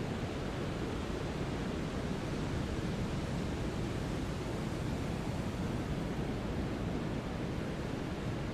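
Synthetic brown noise: a steady, even hiss weighted to the low end, like a deep rumble with no changes or events.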